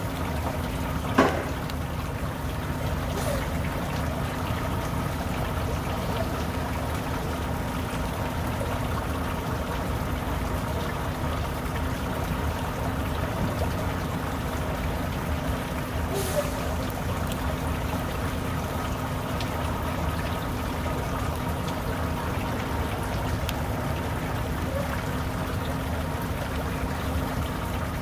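Volvo semi-truck's diesel engine running steadily at low revs with a constant hum over a rushing hiss, as the truck and trailer move slowly. A sharp click about a second in.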